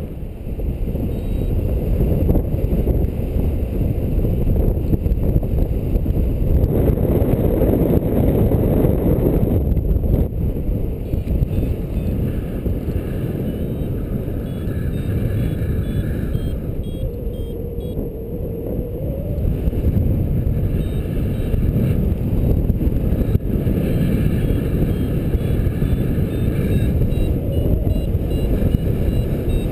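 Steady wind rushing over the microphone of a paraglider pilot in flight. Faint repeated beeps from a flight variometer come in about halfway through and again near the end.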